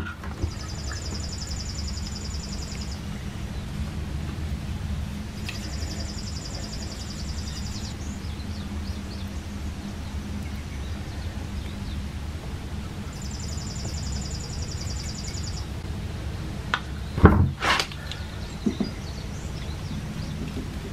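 Steady low hum, with a high buzzing trill that comes and goes three times, about two seconds each. About seventeen seconds in come a few sharp knocks as PVC pipe fittings are handled and pushed together.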